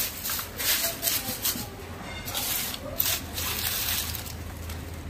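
Dry leaves rustling as they are handled by gloved hands and dropped into a plastic bucket, in several irregular rustles.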